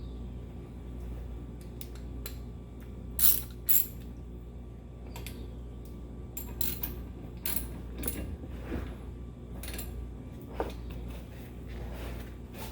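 Hand tools on a brake caliper: irregular metallic clicks and clinks, plausibly a ratchet and 12 mm socket, with two sharp clanks close together about three seconds in.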